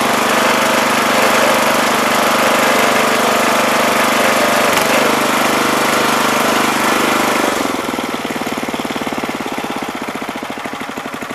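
Small 5 hp single-cylinder gas engine of a wood splitter running steadily, then about two-thirds of the way through dropping to a slower, uneven, pulsing beat as it is throttled down, and starting to die away at the very end as it is shut off.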